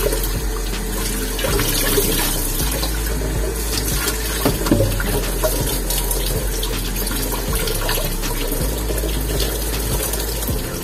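Kitchen tap running steadily into a stainless steel sink, the stream splashing over duck liver and gizzard pieces as they are rinsed by hand, with a few light knocks.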